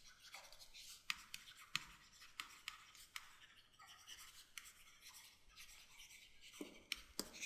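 Faint scratching and irregular light taps of a stylus writing by hand on a tablet.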